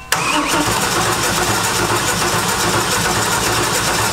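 Starter cranking the engine of a mid-engine 1967 Mustang fastback steadily without it catching. It starts abruptly just after the start. The engine won't fire, a fault the crew traces to the ECU getting no crank-position signal.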